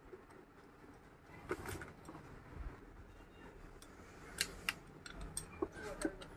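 Faint, scattered metallic clicks of nuts and a spanner being handled on the end-cover bolts of an electric motor as the nuts are fitted and tightened, with two sharper clicks a little past the middle.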